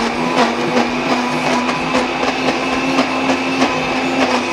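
High-powered countertop blender's motor running steadily under load, its tamper pushed down into the jar, churning soaked walnuts, matcha and coconut oil into a thick cream.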